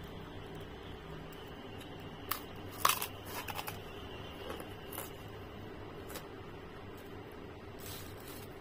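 A prawn cracker crunching as it is bitten and chewed, in a quick cluster of crisp cracks about three seconds in, with a few single cracks later. A steady low hum lies underneath.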